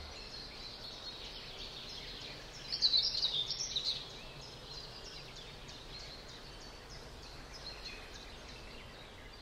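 Birds chirping and singing over a faint outdoor hiss, with one louder run of quick chirps about three seconds in.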